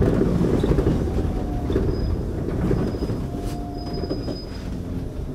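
City bus rolling over cobblestones, heard from inside the cab: a dense rumble and rattling clatter of the tyres and bus body on the stone setts, with a few faint high squeaks, growing quieter toward the end.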